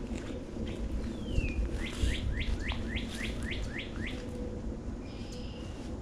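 A songbird singing: a falling whistled note about a second in, then a quick series of about eight sharply rising notes, some four a second, and a short high steady whistle near the end.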